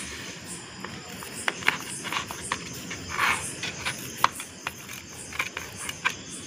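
A pizza cutter wheel and a spatula working on a plate: scattered light clicks and taps, with a short scrape about three seconds in.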